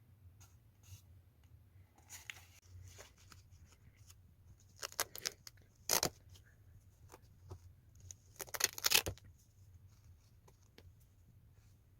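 Packaging being handled during an unboxing: scattered rustles and clicks, a sharp snap about six seconds in, and a longer crackly burst of plastic or paper tearing near nine seconds, over a faint low hum.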